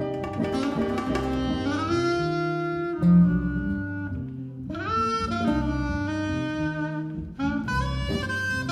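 Live jazz combo: a saxophone plays a melody of long held notes over an electric bass line, acoustic guitar and congas.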